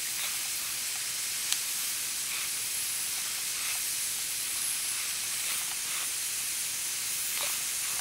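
Nitrogen plastic welder hissing steadily as hot nitrogen gas streams from its tip onto a polyethylene weld, with the nitrogen flow set too high. There is one faint click about a second and a half in.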